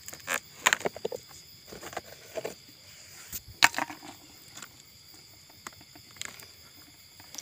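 Hand rummaging in the wet, rotting crown tissue of a cut coconut palm, the fibrous palm material crackling and snapping in scattered clicks, busiest in the first few seconds and sparser after.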